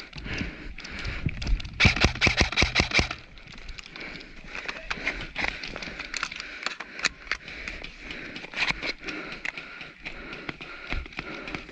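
Airsoft rifle firing a short full-auto burst about two seconds in, a quick run of sharp shots at roughly ten a second, with scattered clicks and gear rustling around it.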